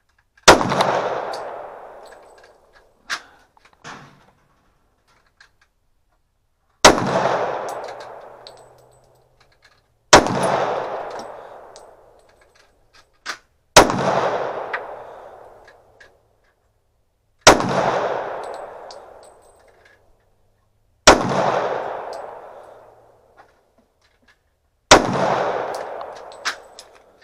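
Smith & Wesson .40 calibre semi-automatic pistol fired seven times in slow, deliberate single shots, each report trailing off in about two seconds of echo. Lighter metallic clinks sound between some shots, from ejected brass casings landing.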